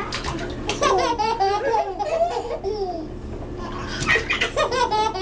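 Babies laughing in bouts of quick, pulsing giggles and belly laughs, loudest about a second in and again about four seconds in.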